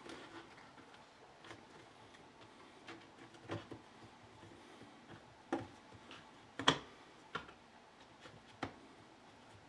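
Sporadic light clicks and knocks of tools and small parts being handled during bench repair work on a concrete vibrator, the loudest knock about two-thirds of the way in.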